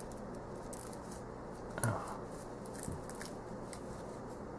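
Small scissors snipping and sliding through the plastic shrink-wrap on a card box, with light crackling of the wrap and one brief louder sound about two seconds in.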